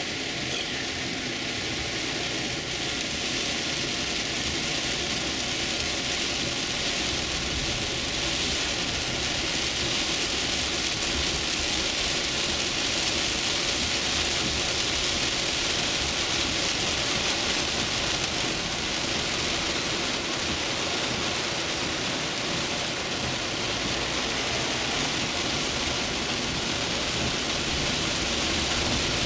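Heavy rain falling on a car's roof and windshield, heard from inside the cabin as a steady hiss, with a low rumble of the moving car underneath.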